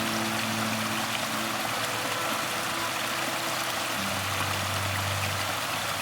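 Steady hiss of heavy rain, with soft background music holding low notes that change about two-thirds of the way through.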